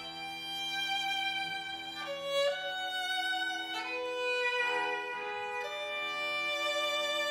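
String quartet of violins, viola and cello bowing slow, sustained chords that move to new notes a few times.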